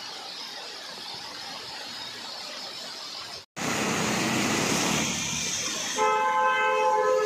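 Heavy rain hissing steadily on a flooded road, then, after a brief cut, louder traffic wading through flood water with splashing. About six seconds in, a vehicle horn sounds, held for just over a second.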